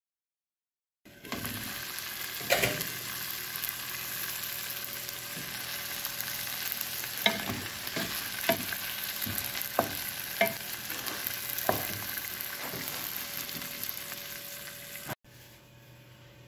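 Diced vegetables sizzling steadily in a frying pan as they are stir-fried, with sharp clicks and knocks every second or so from the stirring. The sizzle starts about a second in and stops suddenly near the end, leaving only a faint hum.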